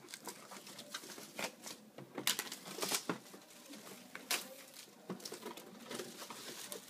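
Clear plastic shrink wrap being peeled and crinkled off a cardboard box, with scattered sharp crackles and taps as the box is turned in the hands.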